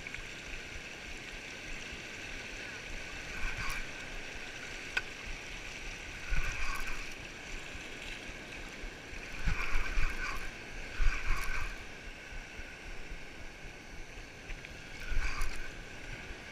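Spinning reel being cranked to wind in line, over a steady wash of surf. Several gusts of wind buffet the microphone with low rumbles.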